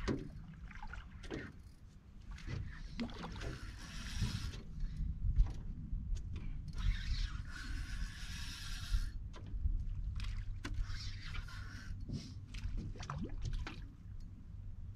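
Rod-and-reel fight with a black drum from a flat-bottomed boat: a low steady rumble of wind and water, with two stretches of hiss, about a second and two seconds long, around four and seven seconds in, and scattered light ticks.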